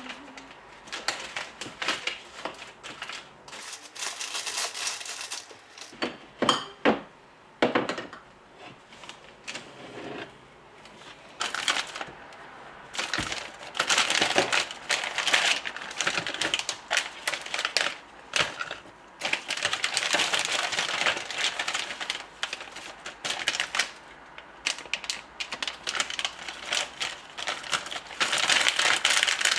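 Plastic food and spice packets crinkling and rustling as they are handled and packed upright into a plastic basket, in stretches of several seconds. There are a few sharp knocks of items being set down.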